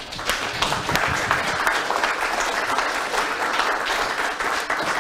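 An audience applauding, starting suddenly and holding steady.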